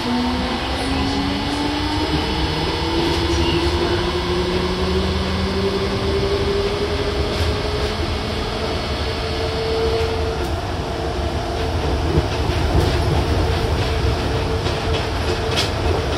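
Nippori-Toneri Liner 330 series car's Mitsubishi IGBT VVVF inverter and traction motors whining as the train accelerates: the pitch rises steadily for about ten seconds, then holds. Under it runs the rumble of rubber tyres on the concrete guideway, with a few light knocks near the end, heard from inside the car.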